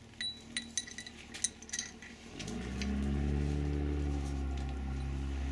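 Light metallic clinks and taps of brake caliper parts and tools being handled. About two seconds in, a steady low machine hum starts and holds.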